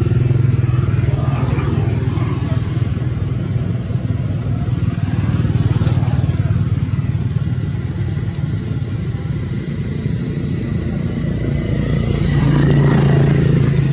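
An engine running steadily with a low hum, growing louder about twelve seconds in.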